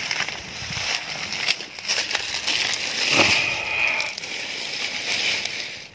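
Rustling and crackling handling noise, with scattered sharp clicks.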